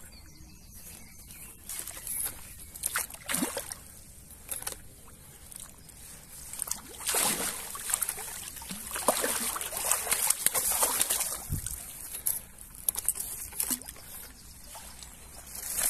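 Water sloshing and splashing irregularly as a carp landing net is worked in the muddy shallows at a pond's edge to release a mirror carp, loudest in the middle stretch.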